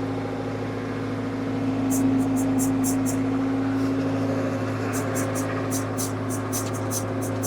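Ford 555C backhoe's engine running steadily while the boom is inched to line up the bucket pins, getting a little louder about two seconds in. Quick light ticks come in short runs over the engine sound.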